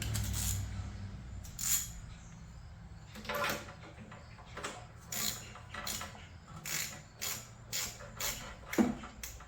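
Hand-tool work on the wood chipper's small engine: short clicks and knocks, a few at first, then a steady run of about three a second over the last few seconds. A low hum fades out in the first second or two.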